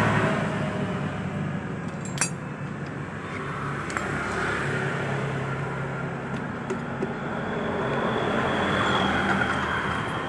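Steady road traffic noise, with a few sharp metal clinks about two, four and nearly seven seconds in as a socket wrench works the valve-cover bolts on a motorcycle cylinder head.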